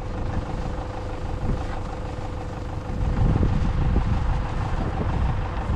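A vehicle engine running steadily, a little louder from about three seconds in.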